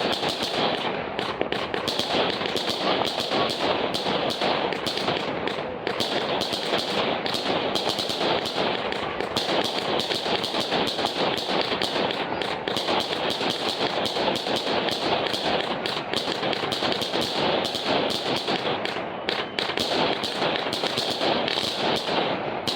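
Fireworks going off in a dense, continuous crackle of rapid small bangs, with a hissing crackle high up that comes and goes every few seconds.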